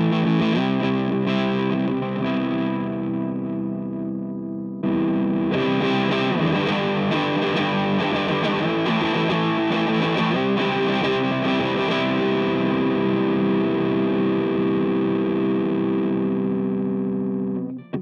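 Electric guitar played through a Cort CMV15H tube amp head and a cabinet with a Celestion Seventy 80 speaker, with an overdriven tone. Distorted chords ring out; a fresh chord is struck about five seconds in and left to sustain, then the sound is cut off suddenly near the end.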